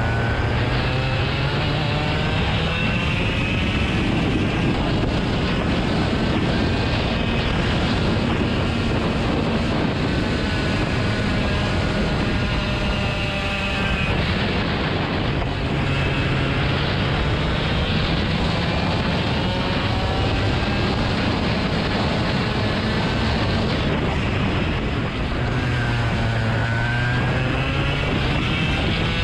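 An engine running steadily under strong wind noise on the microphone, its pitch slowly rising and falling.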